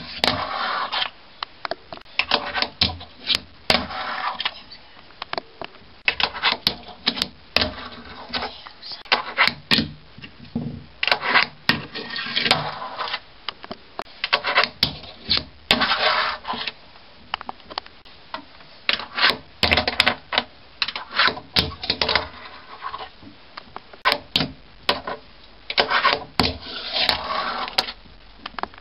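Fingerboard tricks on a wooden desk: sharp clacks of the small board popping and landing on the wood, with scraping grinds and slides along a concrete ledge. These come in bursts with short pauses between.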